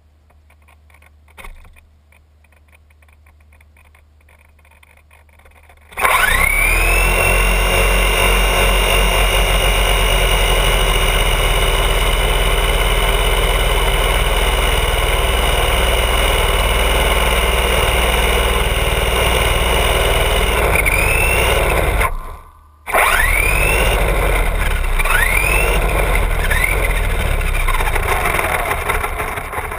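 Traxxas Bandit RC buggy's brushless electric motor and drivetrain whining loudly under full throttle, wheels spinning while the car is stuck. It spins up in a rising whine about six seconds in and holds steady, cuts out for under a second, then revs again in several short rising whines before winding down near the end.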